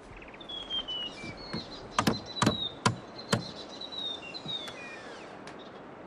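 Forest birds singing, with short whistled notes that mostly fall in pitch, over a quiet bush background. A few sharp knocks land about two to three and a half seconds in.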